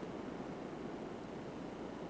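Steady low background noise without any distinct sounds, an even rumbling hiss.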